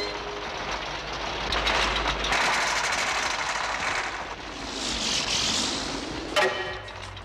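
Cartoon sound effect of a bulldozer's engine, a noisy mechanical rumble that swells and fades, with a sharp knock about six seconds in.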